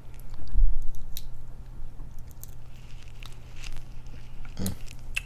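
Eating snow crab legs close to the microphone: shell crunching and cracking, wet squishing and chewing, with a low thump about half a second in.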